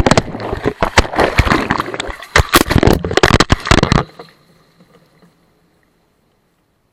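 Washing machine drum tumbling with water sloshing and loud irregular knocks and clunks, stopping abruptly about four seconds in.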